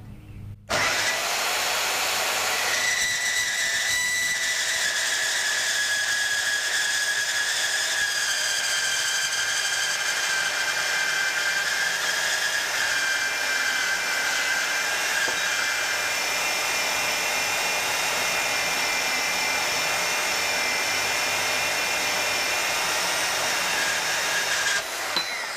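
Bauer 10-amp portable bandsaw starting under a second in and cutting through steel angle iron: a steady motor-and-blade whir with high ringing tones from the blade in the steel, stopping near the end.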